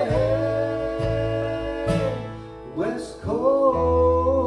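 Country-bluegrass band playing a song. A voice holds a long sung note on "family", then comes in on "West" about three seconds in, over acoustic guitar and banjo with a low bass line.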